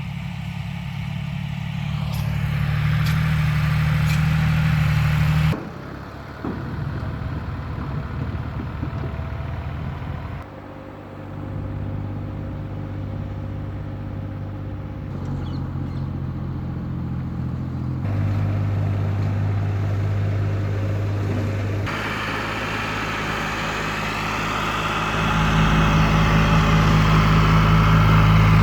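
Engines of heavy salt-harvesting machinery running steadily, in several shots cut together, so the engine note changes abruptly a few times; louder near the end.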